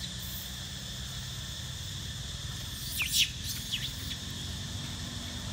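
Steady high insect drone over a low rumble, with a brief cluster of sharp, high squeaky calls sweeping up and down about three seconds in.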